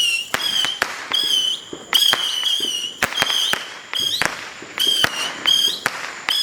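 Consumer firework cake firing a rapid series of whistling shots: each shot is a sharp pop followed by a short high whistle, about two a second.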